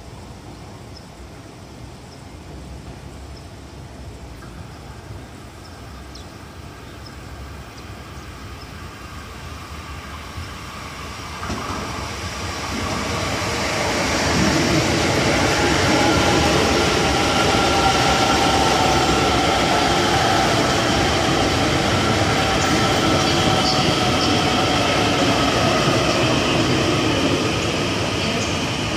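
ITX-Saemaeul electric multiple-unit train approaching and running along the platform. A faint rumble builds slowly, then grows sharply loud about twelve seconds in as the cars pass close by, with a faint whine that falls slightly in pitch.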